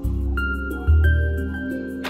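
Background music: held tones over a deep bass, with a light ticking beat about four times a second.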